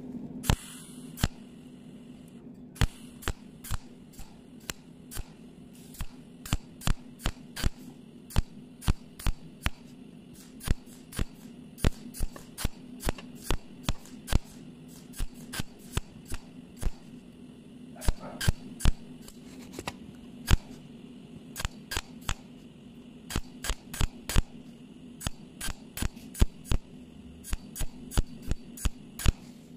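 Cold welding machine firing in spot-pulse mode, each pulse a sharp snap, about two a second at an uneven pace, as filler rod is tacked into a hole in a metal plate. A steady low hum runs underneath.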